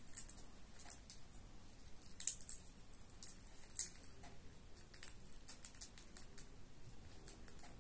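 A parrot cracking seed shells with its beak: irregular sharp little cracks and clicks, the loudest a little over two seconds in and again near four seconds.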